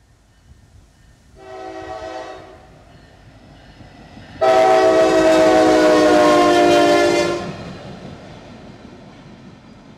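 Norfolk Southern locomotive horn on lead unit NS 9-1-1: a short blast about a second in, then a long, very loud blast a few seconds later that sags slightly in pitch as the locomotive passes close by. The locomotives' engine and wheel rumble continue underneath and after.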